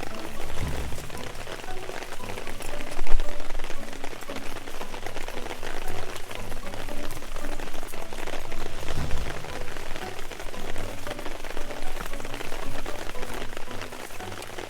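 Dense, steady crackling and sizzling from an open-fire cookout, with a low thump about three seconds in.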